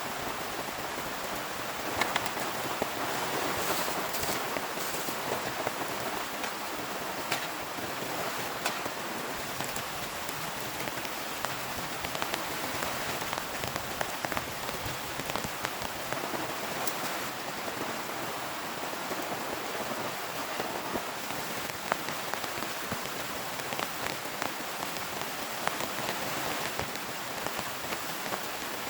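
Heavy rain falling steadily, with sharp individual drops striking a surface close by throughout.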